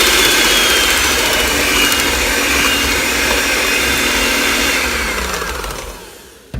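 Electric kitchen mixer motor running steadily with a whine, then switched off and winding down, its pitch falling, about five seconds in. A short knock follows near the end.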